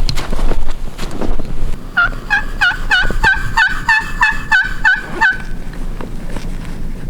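A series of turkey yelps, about eleven quick notes over three seconds, each dropping in pitch, starting about two seconds in. Before them a low rumble of wind on the microphone is the loudest sound.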